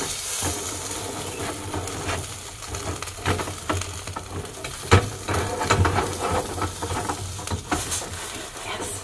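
Pancake frying in a stainless steel pan while a spatula scrapes and knocks against the pan as it is worked under the pancake to flip it, with one sharp knock about five seconds in.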